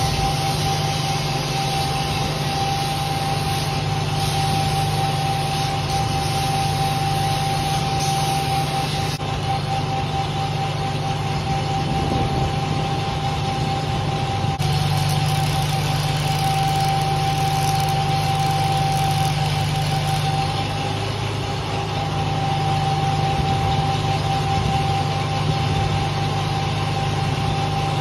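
Farmall M tractor's four-cylinder engine running steadily to drive a PTO generator, with a constant high whine over the engine sound.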